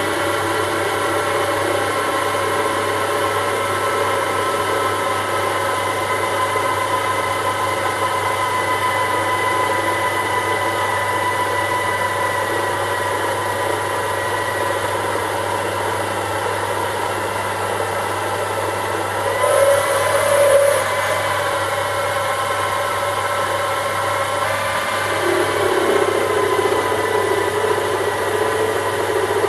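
Sherline micro lathe running steadily with its motor and spindle whine. About twenty seconds in there is a brief louder burst with added hiss, and a few seconds later the lower part of the note shifts.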